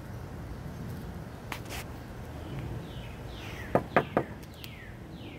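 A bird calling outdoors, a run of about six short downward-sliding calls in the second half, over steady background noise. Three sharp knocks in quick succession, a little under four seconds in, are the loudest sounds.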